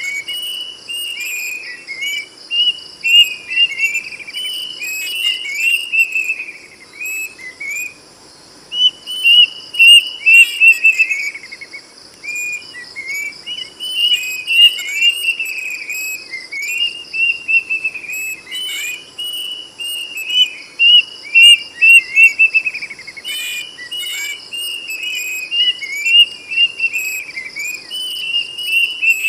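Plaintive cuckoo (kedasih) singing loudly: repeated phrases of quick, clear whistled notes that step down in pitch, with short pauses between phrases. A steady high-pitched insect drone runs underneath.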